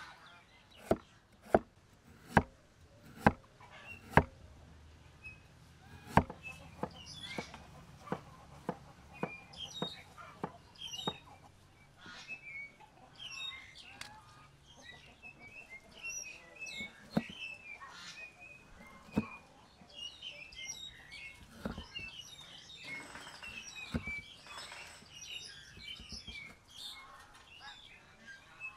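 A cleaver chops through a carrot onto a wooden chopping block, about one chop a second for the first few seconds, then sparser knocks. Small birds chirp throughout.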